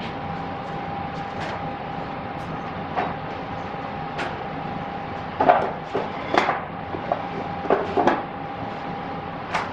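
Scattered light knocks and clinks of tableware, bunched together in the second half, over the restaurant counter's steady background hum with a faint held tone.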